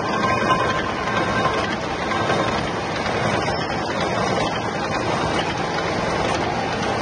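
Gear hobbing machine running steadily, its rotating hob cutting teeth into a large gear wheel, with a constant wash of cutting oil pouring and splashing over the work.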